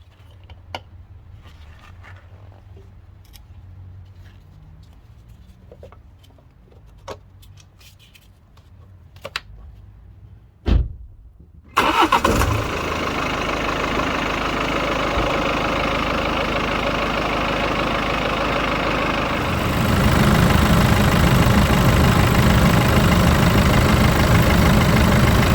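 BMW 520d (F10) four-cylinder diesel engine started after an oil change. After several light clicks and a single thump, it fires about twelve seconds in and settles into a steady idle. The idle grows louder about eight seconds later.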